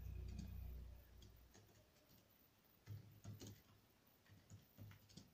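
Faint computer keyboard and mouse clicks, a few scattered taps in small clusters over near silence. A low hum fades out over the first second and a half.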